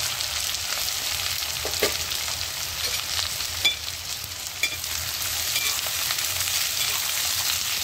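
Freshly added sliced onions frying in hot mustard oil in a kadhai: a steady sizzle, with a ladle stirring through them and a few sharp clicks. The onions are at the start of frying, cooked until just reddish, not browned.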